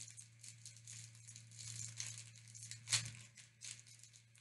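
Plastic snack wrapper crinkling faintly as it is pulled and worked at by hand, struggling to tear it open, with one sharper crackle about three seconds in.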